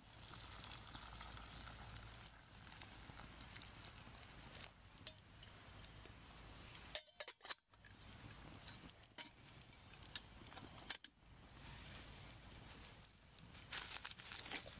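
Campfire burning: a faint, steady hiss with scattered small crackles and clicks, with a brief dip and a few sharper snaps about halfway through.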